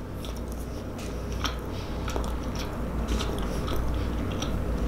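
Close-miked chewing of a mouthful of White Castle slider, with soft wet mouth clicks scattered throughout, over a steady low hum.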